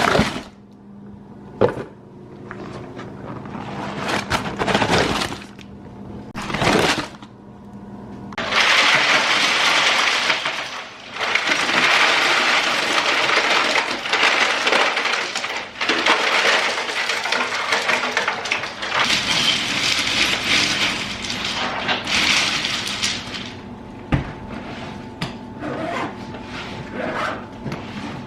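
Ice cubes poured and tumbling into a cooler, a long crunching, rattling clatter, with separate knocks and clunks before it as items are packed in.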